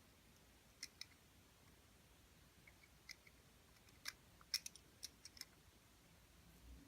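Faint, scattered small clicks and taps of watch parts being handled as the movement is fitted back into the watch case, about a dozen in all, the sharpest about four and a half seconds in.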